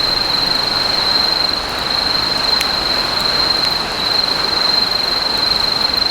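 Insects trilling continuously at one high pitch, over a steady hiss.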